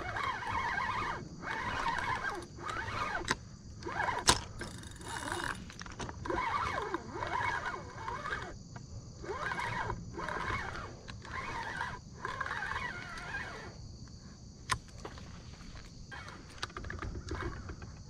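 A fishing reel being cranked in short bursts of about a second, with brief pauses, as a hooked striper is reeled in. A few sharp clicks and a steady high-pitched hiss are heard throughout.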